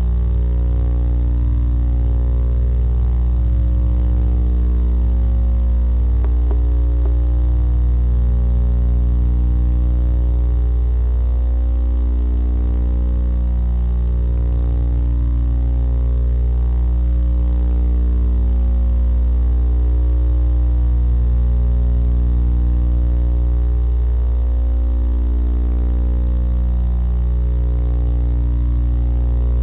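Steady electrical mains hum, a low buzz with a thick stack of overtones, picked up on the nest box camera's audio line.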